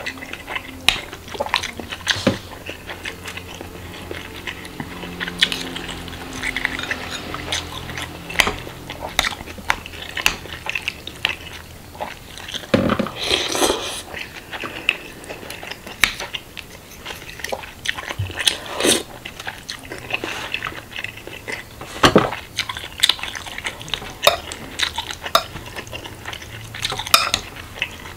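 Metal spoon and fork clinking and scraping against a glass bowl of meatballs, rice and broth, in irregular clicks, with close-miked chewing between them. A few louder knocks come about halfway through and again later.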